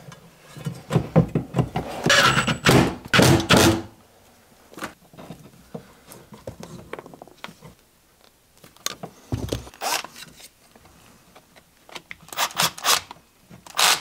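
Knocks and clatter of a metal back box being pushed and fitted into a wall socket hole, with tool handling; a run of loud knocks in the first few seconds, then a single knock near the middle and a few more near the end.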